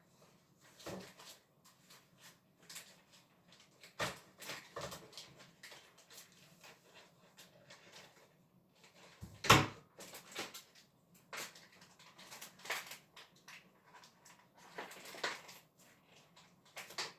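Plastic steak packaging being pried, pulled and cut with scissors: scattered crinkling, rustling and small clicks, with one loud knock about nine and a half seconds in.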